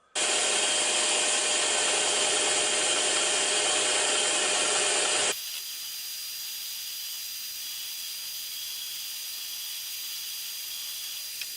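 Scroll saw running and cutting through old plywood, a steady noisy sawing sound. About five seconds in it drops suddenly to a quieter, thinner sound with a faint high whine.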